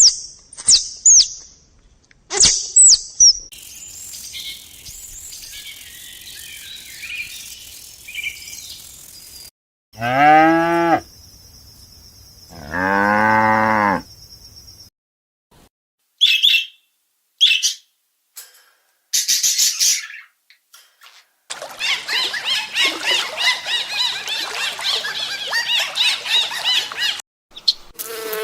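A series of separate animal sounds. Quick high chirps come first. About ten seconds in, a cow moos twice, two long low calls a couple of seconds apart that are the loudest thing heard. Later come more short high chirps and a dense stretch of chirping.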